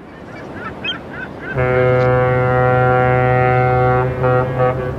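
Ship's horn sound effect: one long low blast of about two and a half seconds, then two short toots, over a steady rushing background. A few short bird calls come just before the horn.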